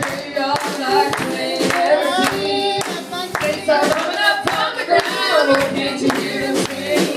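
Gospel singing with hands clapping along in a steady beat, about two claps a second.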